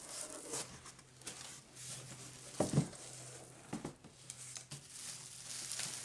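Cardboard box flaps being folded open and plastic packaging crinkling as hands rummage inside the box, with one louder knock about two and a half seconds in.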